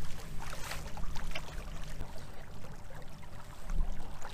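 Kayak's battery-powered electric motor running at reduced speed with a steady low hum, under water splashing and lapping against the hull.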